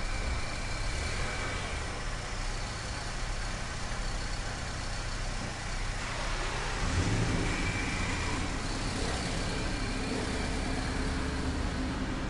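Steady rumbling, hissing garage ambience, with a low hum coming in about seven seconds in.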